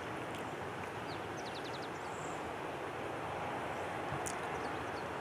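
Steady outdoor background noise, like distant traffic, with a bird's short run of quick high chirps about one and a half seconds in.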